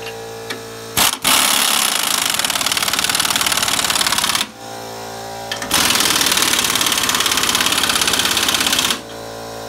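Pneumatic impact wrench hammering in two bursts of about three seconds each as it runs U-bolt nuts down onto a leaf spring clamp on a rear axle, with a steady machine hum between the bursts.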